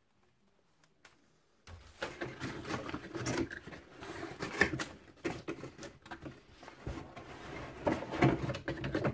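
Cardboard kit box being handled: flaps and inserts rustling, scraping and knocking, starting a little under two seconds in and going on as a busy run of small knocks and rustles.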